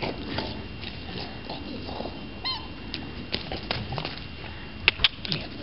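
A squeaky toy being played with: one short, pitched squeak about halfway through, among scattered clicks and knocks, with two sharper knocks near the end.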